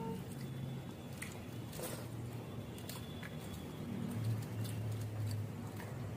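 Eating with the hands from steel plates: rice being squished and mixed with curry, with chewing and light clicks of fingers against the metal, over a low hum.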